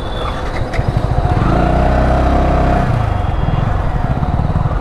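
Yamaha R15 single-cylinder motorcycle engine pulling away from a standstill. The revs build about a second in, hold strongly, then fall back about three seconds in as the bike carries on accelerating.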